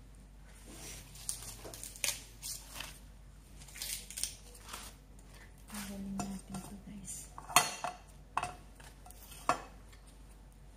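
Rustling and scattered sharp clicks and knocks from an ear of fresh corn being stripped of its silk and handled over a glass baking dish. The loudest knock comes about two-thirds of the way through.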